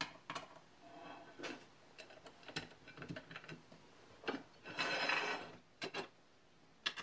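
Aluminium extrusion parts and their screws and washers clicking and knocking as they are handled and fitted together, with a short scrape about five seconds in as metal slides against metal or the bench.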